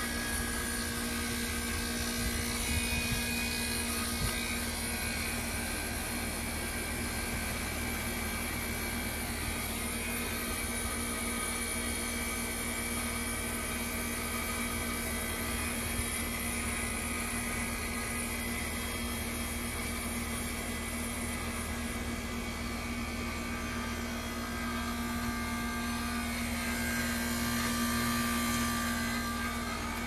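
Heat pump outdoor unit running through a defrost cycle, with a steady mechanical hum. A hiss swells about 27 seconds in and dies away near the end.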